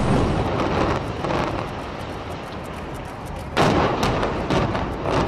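Rumble of brick high-rise towers collapsing in a demolition implosion. It eases off, then a sudden louder crash comes about three and a half seconds in, followed by rough crackling as debris comes down.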